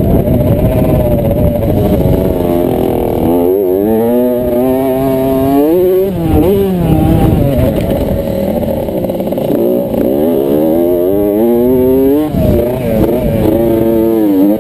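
Kawasaki KX65 two-stroke motocross bike engine at race pace, heard from the onboard camera. It revs up and down repeatedly, the pitch climbing and then dropping sharply about six and again about twelve seconds in, over low wind rumble.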